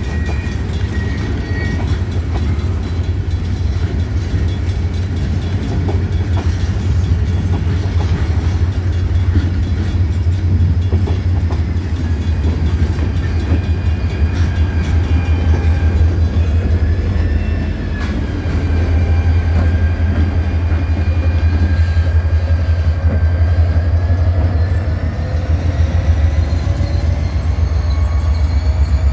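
A slow freight train passing: boxcars rolling by with occasional clicks of wheels over rail joints, then an EMD SD40M-2 diesel locomotive going past with its engine running in a steady low drone. A thin high whine rises in pitch over the last several seconds.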